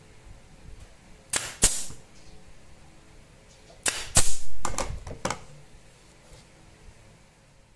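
Jitool F30 pneumatic brad nailer firing brads into the corner joint of a pinewood frame: each shot a sharp snap with a short hiss-like tail. Two shots come about a second in and another two near four seconds in, followed by fainter clicks.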